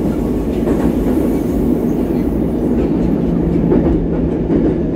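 Moscow metro train running at speed, heard from inside the carriage: a loud, steady rumble of wheels on rails, with a low steady tone coming in about three seconds in.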